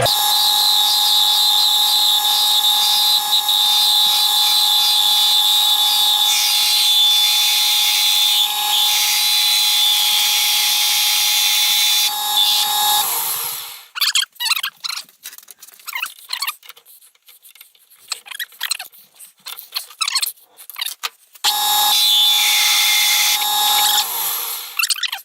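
Metal lathe running with a steady whine, spinning a chunk of aluminum clamped on a carriage bolt. About halfway through it is switched off and spins down, followed by a few seconds of light clattering. It then runs again for a few seconds and spins down near the end.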